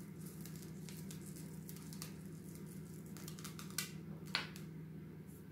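Chocolate chips being scattered by hand onto cake batter in a metal baking tray: scattered soft ticks and taps, with two sharper clicks about four seconds in, over a steady low hum.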